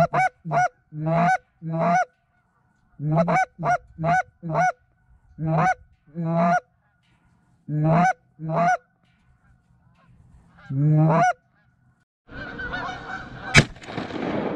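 A hand-blown Canada goose call sounding a run of short honks, each breaking from low to high, mostly in pairs, to call in a flock of geese. Near the end comes a rustle of movement, then a single shotgun shot, the loudest sound.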